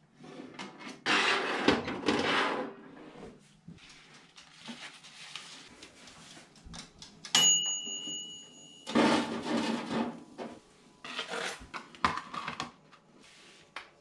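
Toaster oven door and metal wire rack clattering as it is loaded, then a steady ding of the oven's timer bell about seven seconds in that cuts off after a second and a half, followed by metal tongs and rack clattering as the toast is taken out.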